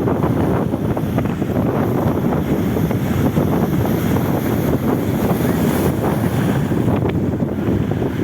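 Steady wind blowing across the microphone, a dense low rumbling noise, with sea surf mixed in beneath it.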